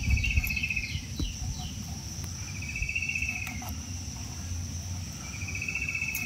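Insects calling: a fast-pulsed high trill, about a second long, comes three times over a steady high-pitched buzz.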